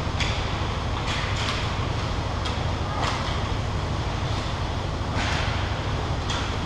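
Steady low rumble of an ice hockey rink's ambience, with several short scrapes of hockey skate blades cutting the ice.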